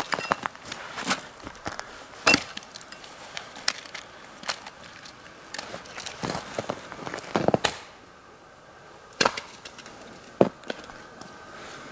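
Hatchet splitting firewood: several sharp chops at irregular intervals, with wood cracking and splintering, the loudest strike about two seconds in.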